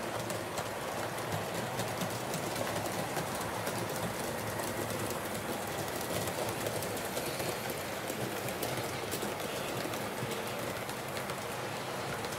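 HO scale model train running along its track: a steady rolling noise peppered with many small clicks.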